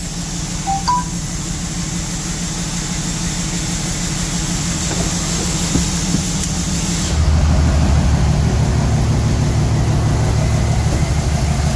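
Common-rail 5.9 Cummins inline-six diesel idling steadily just after its first start following injector reinstallation, heard first from inside the cab, then louder and fuller from about seven seconds in. The idle is a little rough, which the owner takes for a slight miss.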